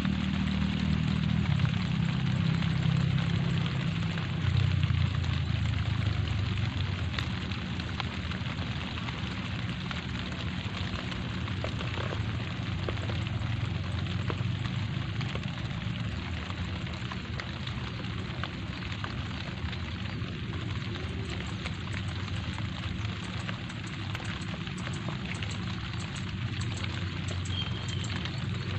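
Light rain falling on leaves and wet ground: a steady hiss dotted with fine drip ticks. A low rumble runs under it, stronger in the first several seconds.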